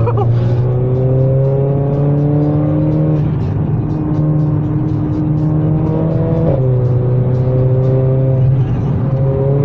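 Car engine heard from inside the cabin, pulling along the road. Its pitch climbs slowly and steps down at about three and six and a half seconds as it changes up a gear, with music playing over it.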